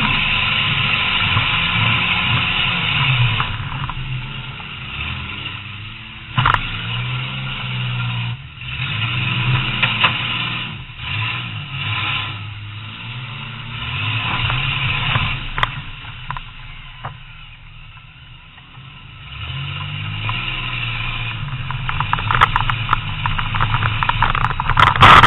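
Demolition derby car's engine heard from inside the car, revving up and down as it drives, with sharp bangs about a quarter of the way in, just past the middle, and a loud cluster of them at the very end; the engine eases off briefly about two-thirds in.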